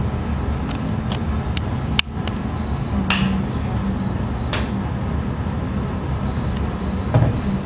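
Steady low background hum with a few scattered sharp clicks, the sharpest about two seconds in, and a dull thump near the end.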